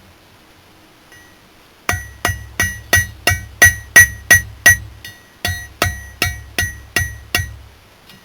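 Blacksmith's hammer striking hot file steel on an anvil, forging a flint-and-steel striker. Ringing blows come about three a second, starting a couple of seconds in, in two runs with a short break a little past halfway.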